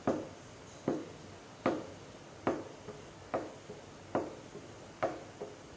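Wooden ghotna (haleem masher) pounding thick boiled lentils in a large pot. It strikes a steady knock a little faster than once a second, working the lentils down into a smooth paste.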